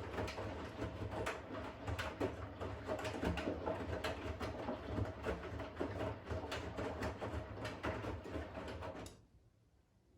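Siemens iQ500 front-loading washing machine turning its drum of wet laundry: a low motor hum with sloshing water and soft, irregular thuds, which stops abruptly about nine seconds in as the drum pauses between turns of its wash rhythm.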